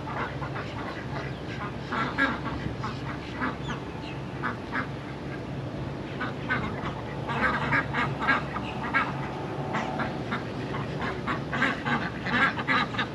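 Ducks quacking in a small group, a flock of white domestic ducks and mallards, with bursts of quick quacks that come thickest in the second half.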